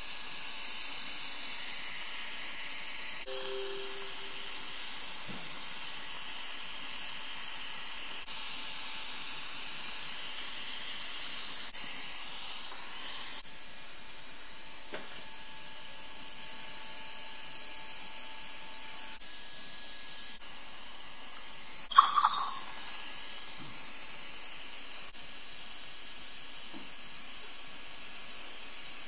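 Steady hissing of a dental surgical suction drawing air and fluid, its pitch wavering slightly. A short, sharp clatter sounds once, about three-quarters of the way through.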